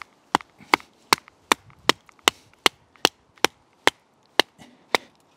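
A baton striking the spine of a QSP Bison D2-steel knife, driving the blade down through a dry, knotty black spruce stick to split it. It makes a steady run of sharp knocks, about two and a half a second, which stop shortly before the end.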